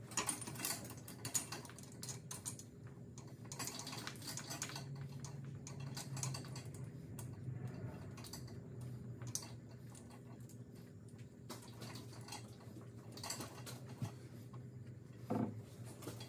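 Light, irregular clicking and clinking of hand tools on metal as bolts are worked by hand on a tractor's loader mounting bracket, over a low steady hum, with one louder knock near the end.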